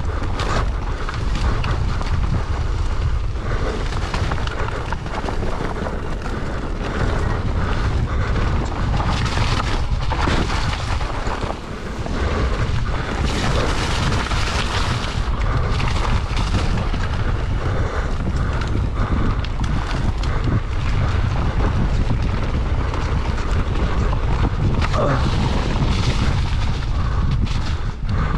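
Wind buffeting the microphone of a mountain bike's handlebar camera during a fast descent, a heavy low rumble, with knobby tyres rolling over loose dirt and gravel and scattered rattles from the bike.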